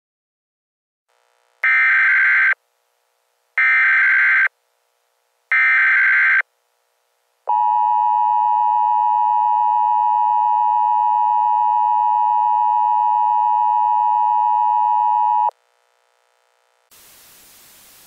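Emergency Alert System alert tones: three short bursts of SAME header data tones about two seconds apart, followed by the steady two-tone EAS attention signal held for about eight seconds and cut off suddenly.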